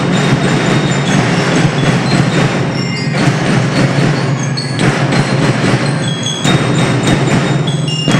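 School marching band playing: bell lyres (marching glockenspiels) ringing out a melody in short bright notes over snare drums and crash cymbals.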